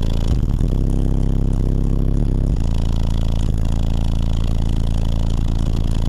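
Car-audio subwoofers playing deep bass notes at high volume, heard inside the truck's cab; the bass note changes every second or two.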